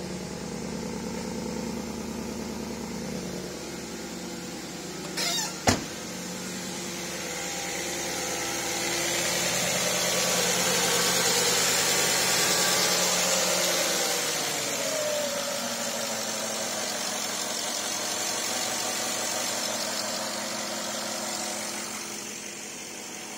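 Porsche Cayenne S 957's V8 idling steadily on its first start after the intake ports were cleaned of carbon, while the loosened carbon burns off. A single sharp knock comes about five and a half seconds in, and a rushing hiss grows louder in the middle.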